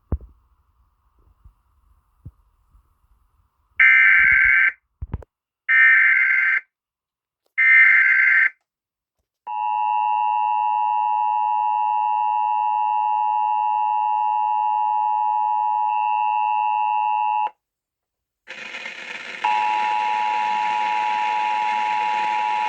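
Emergency Alert System alert tones announcing a severe thunderstorm warning. First come three bursts of about a second each of digital data tones (the SAME header). Then the two-tone attention signal is held steady for about eight seconds, and near the end a single steady tone sounds over static hiss.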